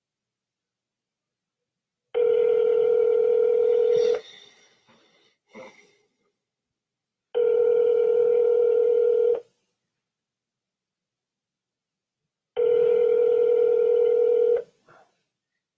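Telephone ringback tone heard by the caller: three steady rings of about two seconds each, three seconds apart, meaning the dialed line is ringing and has not yet been answered.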